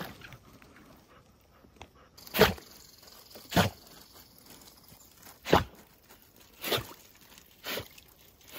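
Five sharp knocks, roughly a second apart.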